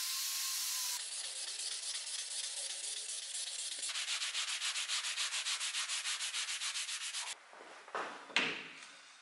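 An angle grinder runs against the steel blade for about the first second. Then the flat of the blade is hand-sanded with a sanding block in fast back-and-forth strokes, about six a second. Near the end come a couple of knocks from handling.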